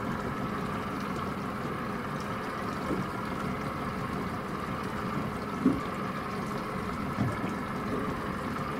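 Steady drone of the car ferry Daini Kannon's engines heard across the water, with a few brief low thumps, the loudest about two-thirds of the way through.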